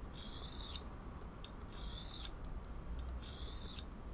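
Mora Classic knife blade drawn along a Lidl diamond sharpening rod in three rasping strokes, each under a second and ending in a short click, as the Scandinavian-ground edge is honed.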